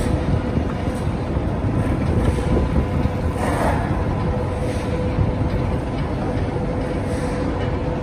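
Steady low rumble of heavy cargo-handling machinery, a crane working a clamshell grab, with a constant whine over it and a brief rattle about three and a half seconds in.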